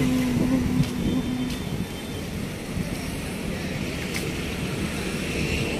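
Steady low rumble of outdoor background noise, with a held low tone in the first second and a half.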